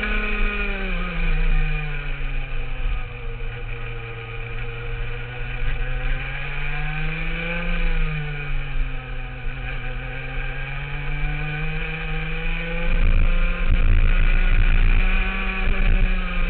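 Rotax two-stroke kart engine heard on board at racing speed. Its pitch falls as the kart slows for a corner, climbs again as it accelerates out, falls once more about eight seconds in, then rises gently through the last third.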